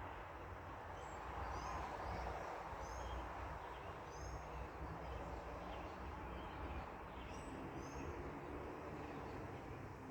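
Small birds chirping, short high notes every second or so, over a steady low rumble of road traffic that swells in the first few seconds. A low drone of an engine joins near the end.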